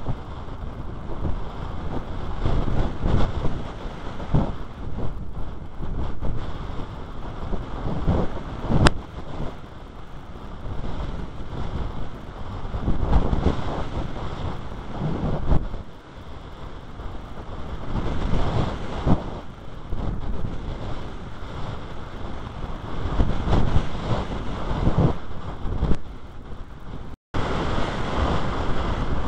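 Strong wind buffeting the microphone, rising and falling in gusts, with one sharp click about nine seconds in.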